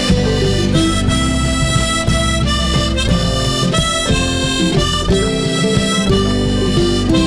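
Instrumental background music: a harmonica playing a melody of held notes over a steady low accompaniment.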